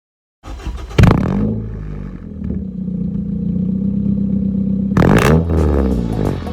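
Honda CB7 Accord's engine starting with a loud burst about a second in, then running steadily at idle, with a brief rev about five seconds in.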